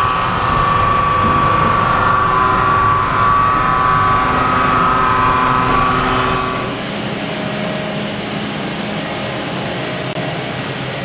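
CNC machine-shop machinery running: a steady mechanical drone with a high whine over it. About two-thirds of the way through the whine stops, leaving a plainer steady hum.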